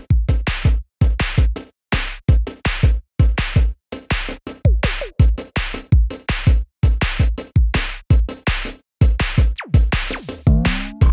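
Electronic background music built on a heavy drum-machine beat of punchy bass-drum hits, several a second, with rising synth glides near the end.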